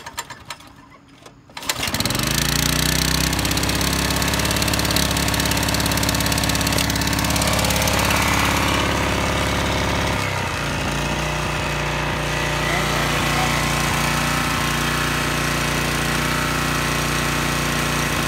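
Honda HR214 lawnmower's four-stroke engine pulled over on the recoil starter and catching on choke about two seconds in, then running steadily. About ten seconds in the throttle lever is moved off choke and the engine settles onto a different, steady note.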